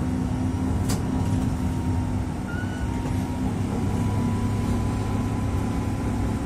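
Tatra T3SUCS tram heard from inside the passenger cabin as it rolls slowly: a steady low running hum with a faint high whine above it, and one sharp click about a second in.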